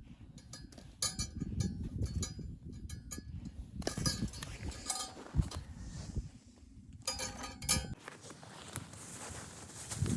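Repeated metallic clinks, each ringing briefly, over a low rumble. About eight seconds in, the rumble drops away and a steady hiss takes over.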